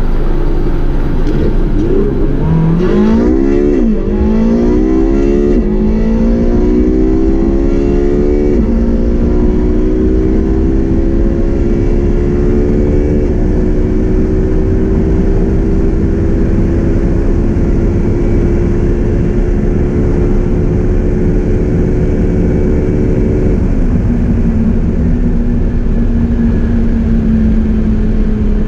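Porsche 918 Spyder's 4.6-litre V8 hybrid drivetrain at full throttle, heard from inside the cabin: the revs climb through quick upshifts about four, five and a half and eight and a half seconds in, then pull in one long slowly rising note with heavy wind and road noise. About three-quarters of the way through the engine note drops to a lower steady tone as the car comes off full power.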